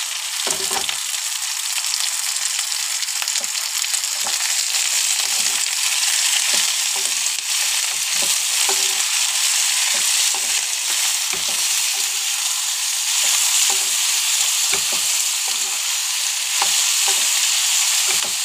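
Chopped tomatoes and small onions sizzling in hot oil in a non-stick pan: a steady frying hiss, with a spatula stirring and knocking against the pan at irregular moments. The tomatoes have just gone in to cook until soft for a gravy.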